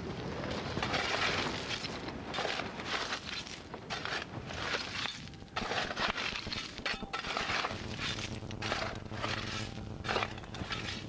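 Spade digging into stony beach shingle: irregular crunching and scraping of gravel and stones, stroke after stroke.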